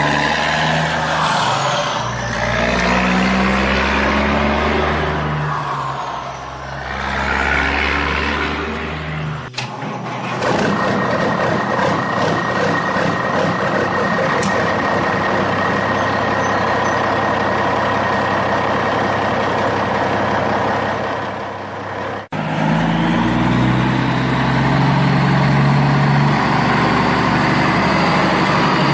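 Motor vehicle engines running in three abruptly cut segments: first a vehicle going by, then a steady run with a high whine, then an engine rising in pitch near the end.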